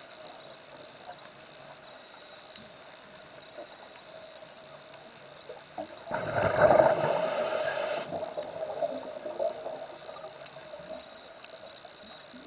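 Underwater audio with a faint steady hum; about six seconds in, a rush of bubbling from a diver's exhaled breath lasts about two seconds and then fades.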